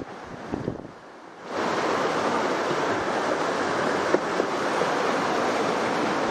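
Mountain creek rushing over rapids: a steady rush of white water that cuts in abruptly about a second and a half in. Before it comes a short stretch of wind noise and rattling on the microphone.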